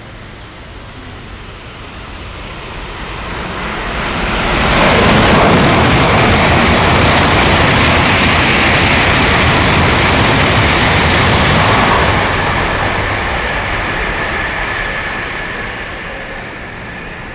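Tokaido Shinkansen bullet train passing through a station at high speed without stopping: a rising rush of air and wheel noise that swells over about three seconds, holds loud for about seven seconds as the cars go by, then fades away.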